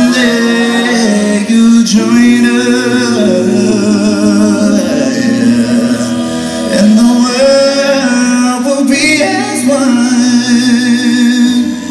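A cappella vocal group singing live, a male lead voice over held vocal harmonies, heard from the audience in a large arena.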